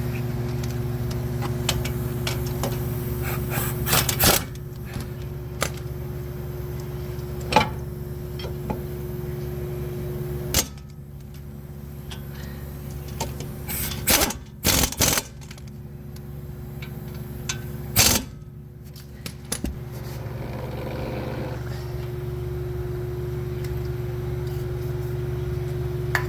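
Hand tools working on a car's brake caliper and bracket: scattered sharp metal clinks and knocks, a few seconds apart, over a steady mechanical hum.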